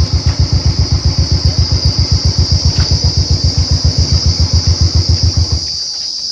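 Royal Enfield Bullet 350's single-cylinder engine running at low speed with an even beat of about nine thumps a second, switched off about five and a half seconds in. Crickets chirp steadily in the background.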